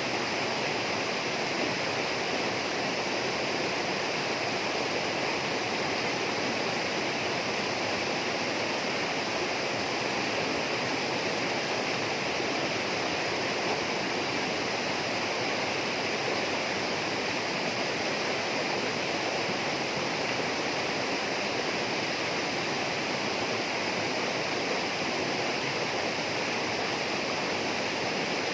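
Steady rushing of flowing water in a tropical rainforest, an even hiss with no break or change.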